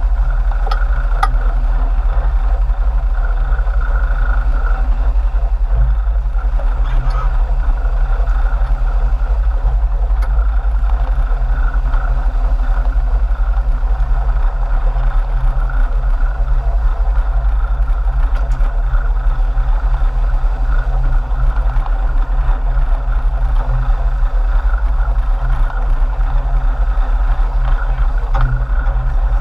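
Sport-fishing boat's engines running with a steady low drone.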